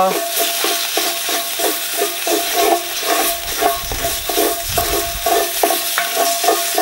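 Tomato paste sizzling as it roasts in a hot cast-iron Dutch oven, with a wooden spoon stirring and scraping it across the pot bottom in quick, regular strokes.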